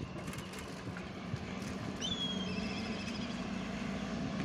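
KTM motorcycle engine running steadily while riding, with road noise. About two seconds in, a high wavering whistling call sounds for about a second and a half.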